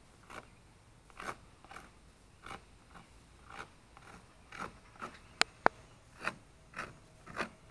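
Knife slicing the fillet away from an alligator gar's hard scaled skin in short scraping strokes, about two a second, with two sharp clicks about five and a half seconds in.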